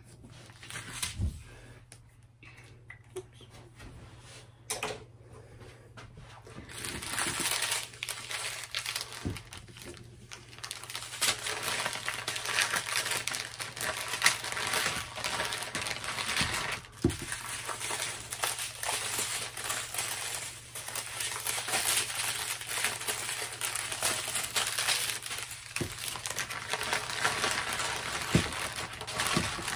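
Plastic bags crinkling as small packets of diamond-painting drills are handled and gathered into a zip-top bag, steady and dense from about seven seconds in. A few light taps and clicks come before that.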